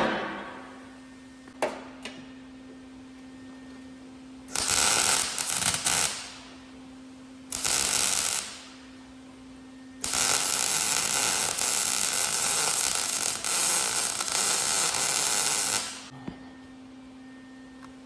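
Electric welding on a steel lawnmower deck: three runs of arc crackle that start and stop abruptly, a short one, a shorter one and a long one of about six seconds, with a steady low hum between them.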